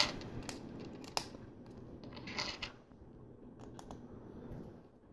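Small plastic LEGO pieces being handled: a few sharp clicks and a short rustle, quiet overall.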